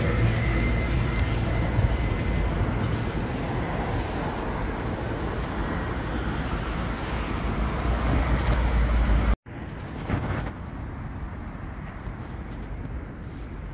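Steady road traffic noise with a deep rumble, heard from the footway of a busy road bridge. About nine seconds in it cuts off abruptly and gives way to a quieter steady outdoor hiss.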